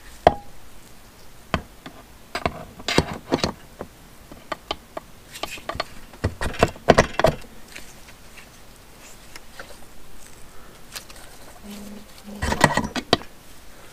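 Aluminium crankcase halves of a Suzuki TS185 two-stroke engine clacking and knocking against each other as one half is set onto the other and pressed down by hand. A sharp click comes about a quarter second in, then scattered knocks in clusters, the busiest in the middle and near the end.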